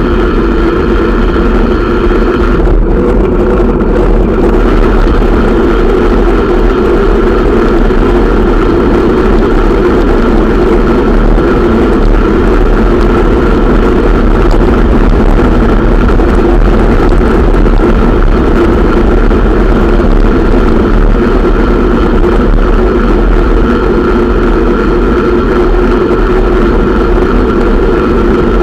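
Bicycle riding steadily along a paved street: a constant loud rushing hum of wind on the bike-mounted camera's microphone and the tyres rolling on asphalt.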